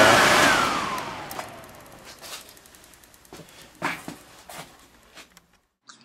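Combustion blower (inducer) motor of a Snyder General GUA furnace, covers off, coasting down after being switched off. Its whine holds for about half a second, then falls steadily in pitch as the rush of air fades over about two seconds. A few faint knocks follow.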